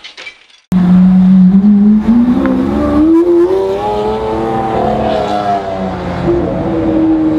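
Lamborghini Aventador's V12 engine accelerating past, starting abruptly under a second in. Its pitch climbs steadily for a few seconds, falls back about six seconds in, then holds steady.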